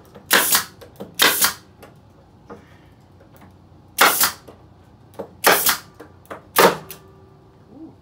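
Pneumatic brad nailer firing nails into wooden boards: five sharp shots, two close together at the start and three more spread over the next few seconds, with a few lighter clicks in between.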